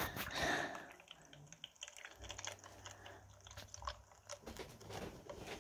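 Quiet close-miked ASMR clicks and crackles from a furry ASMR video, heard through a Nintendo Switch's small speaker. A low hum comes in about two seconds in.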